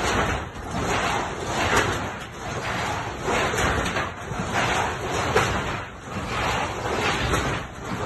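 Wind buffeting a phone's microphone, a rushing noise that swells and fades in irregular gusts.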